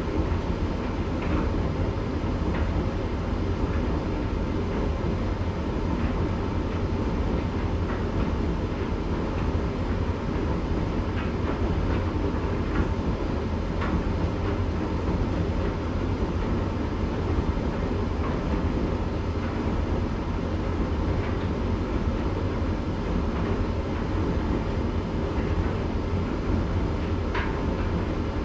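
Candy GrandO 9 kg tumble dryer running: a steady low rumble of the turning drum and motor with a few faint clicks, in the cool-down stage at the end of its Rapid 40-minute cycle.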